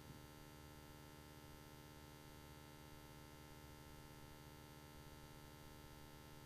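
Near silence with a faint, steady electrical hum made of several constant tones, mains hum in the recording.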